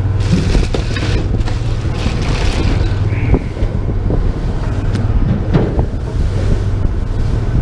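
Charter boat's engine droning steadily at a low pitch, with wind buffeting the microphone and a few light knocks.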